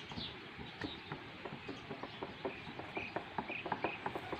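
A run of irregular sharp clicks and snaps close by as an Asian elephant walks past, coming faster and louder in the second half. A few short bird chirps sound in the background.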